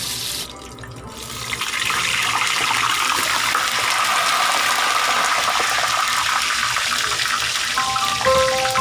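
Pork leg deep-frying in hot oil, hissing and spattering strongly after water is sprinkled over it to crisp the skin. The sound dips briefly, then swells about a second and a half in and holds steady. Light mallet-percussion music starts near the end.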